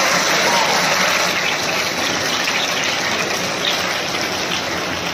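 Steady, even din of a large crowd in a hall, with no single voice standing out.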